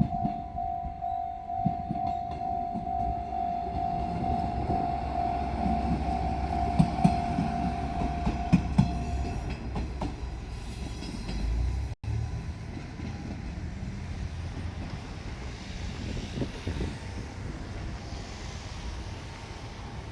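Level-crossing alarm sounding a steady repeated tone while a diesel railcar rumbles through, its wheels clacking over rail joints a few times. The alarm stops about nine seconds in, and the low train rumble goes on more quietly after that.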